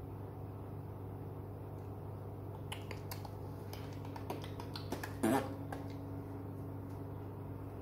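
A crinkly sheet crumpled and handled in the hands: a run of small crackles and clicks for about three seconds, the loudest a little past the five-second mark, over a steady low hum.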